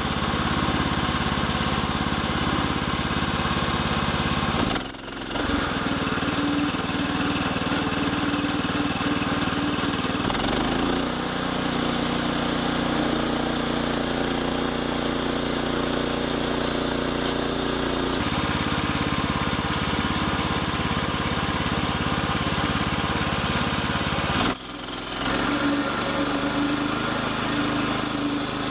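Engine of a sawmill running steadily while milling lumber. Its pitch and tone shift about 10 seconds in and again about 18 seconds in, and the level dips briefly twice, about 5 seconds in and near the end.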